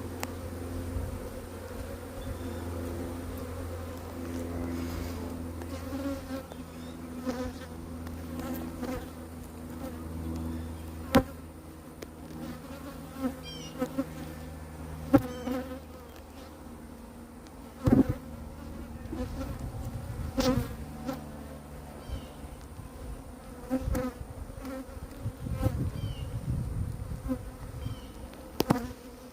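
Honeybees buzzing in a steady hum at an opened hive, with several sharp knocks scattered through it.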